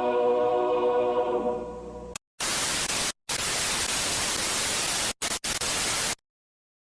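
A held music chord fades out. About two seconds in, loud television static hiss starts, breaks off briefly three times, and cuts off abruptly near the end. This is a broadcast station going off the air.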